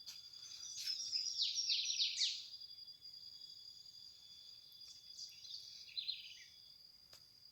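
A bird calls with a fast run of chirps about a second in, and again more briefly a little past the middle, over a steady high insect drone.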